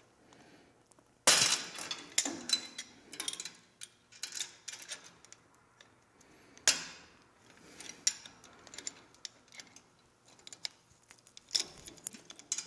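Steel chain and spring hook being crimped shut: light metallic clinks and chain jingling, with a sharp click a little over a second in and another about halfway through.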